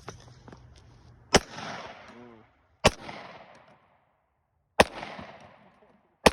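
Four gunshots, spaced about one and a half to two seconds apart, each followed by a fading echo across the open range.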